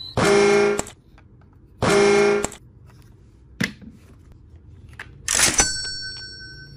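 Two short horn-like toots from a push-button plastic toy Thomas engine as its top is pressed, each lasting about two-thirds of a second. A click follows, then a brief hiss that leaves a lingering ding near the end.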